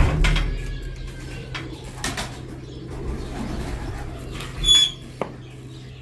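Domestic pigeons cooing, with a few short knocks; the loudest comes just before five seconds in.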